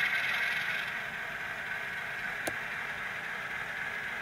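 HO-scale Bowser C630M model diesel locomotive running, its Tsunami sound decoder's diesel engine sound playing through a small onboard speaker, mixed with motor and wheel noise. A brief faint click about two and a half seconds in.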